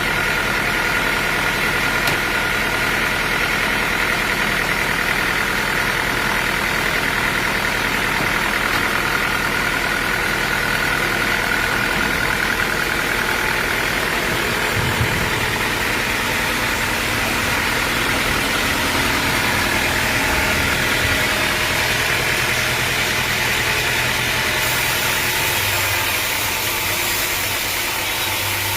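Sawmill machinery running steadily, with a high whine that fades in the second half and a low hum that shifts a few seconds before the end.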